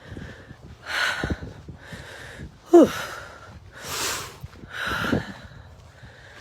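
A woman breathing hard: several loud, forced breaths about a second apart, one of them a voiced "whew" near the middle, as she struggles with the stench.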